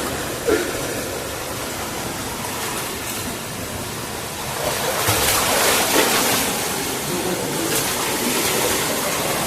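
Steady rush of running water, swelling louder for a couple of seconds around the middle.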